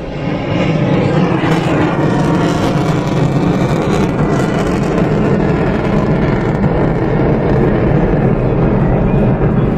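Fighter jet's engine noise, swelling over the first second and then holding loud and steady, with a crackling edge in the first half.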